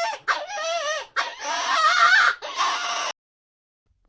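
High-pitched animal whining and squealing: a quick run of wavering cries that stops abruptly about three seconds in.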